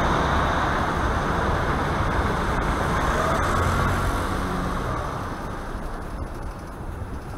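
Road traffic noise in an underpass: a steady rumble of cars that fades away over the last few seconds as the bicycle comes out of the tunnel.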